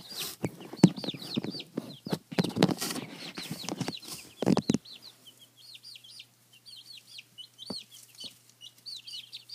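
Three-and-a-half-week-old chicks peeping, a continuous stream of short high peeps. Loud rustling and knocks run under them for the first half, then stop, leaving the peeps alone.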